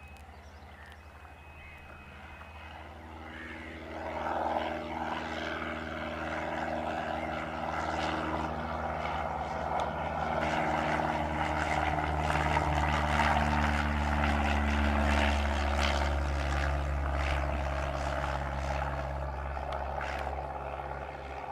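Cessna 172 light aircraft's single piston engine and propeller running, growing louder over the first few seconds and easing off near the end.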